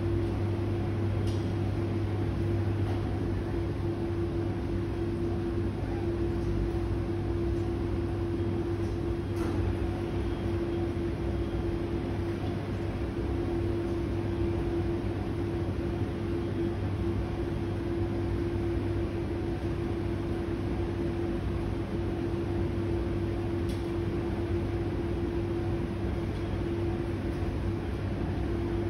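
Electrolux tumble dryer running with a duvet tumbling in its drum: a steady hum with a constant low tone, and an occasional faint tick.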